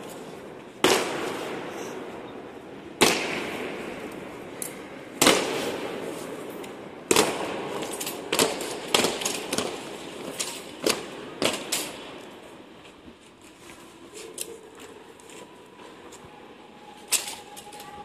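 Honour guard's slow goose-step: boots slamming down on the stone floor about once every two seconds, each strike echoing and dying away. About eight seconds in comes a flurry of quicker, lighter footfalls and clicks, then two more heavy strikes near the end.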